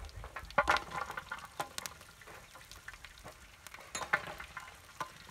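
Whole spices and mustard seeds frying in a large aluminium wok, with a crackling sizzle and scattered sharp pops and clicks as garlic cloves drop into the pan.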